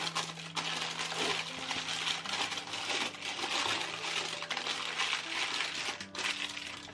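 Baking paper crinkling as it is pressed and smoothed into a baking dish, with a brief pause just after the start and another near the end.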